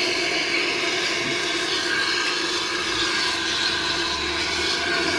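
Steady rushing hiss of liquid nitrogen flowing through a frost-coated filling hose into a storage dewar and boiling off as vapour, with a steady hum under it.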